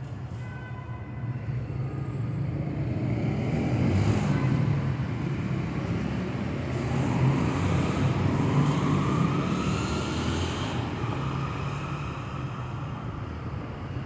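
City street traffic rumbling, swelling as vehicles pass, with an engine's rising whine near the middle.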